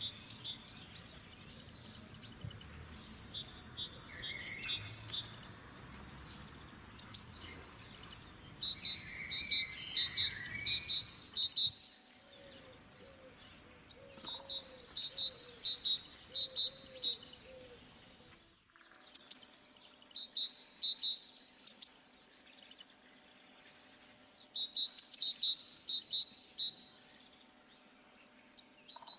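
Blue tit singing: each phrase is a high thin note dropping into a fast, even trill, repeated about eight times a few seconds apart.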